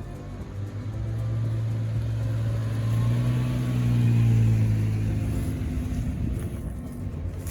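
Jeep Wrangler engine running as it drives, the engine note swelling and rising a little about three to four seconds in, then easing off again.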